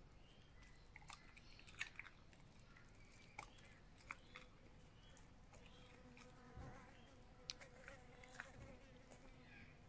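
Faint, near-silent sounds of a Belgian Shepherd eating raw minced chicken off a spoon: scattered soft clicks and smacks of licking and chewing. From about halfway through, a faint steady insect buzz joins in.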